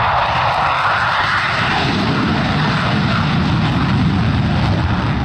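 Fighter jet engine noise played as a dubbed-in sound effect: a steady, loud roar.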